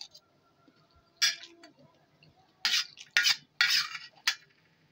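Metal spoon scraping and clinking against a stainless steel plate as rice is scooped up: one short scrape about a second in, then four more in quick succession later on.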